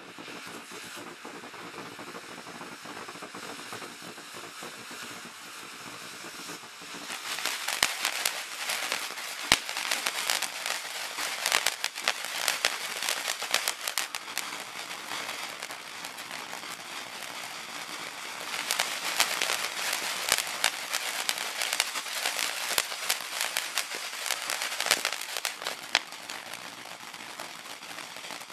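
Black Cat 1.21 Gigawatts 200 g fireworks fountain burning, first as a steady hiss. About a quarter of the way in it breaks into dense crackling with sharp snaps and a few loud pops. The crackle eases off in the middle and comes back strongly in the second half.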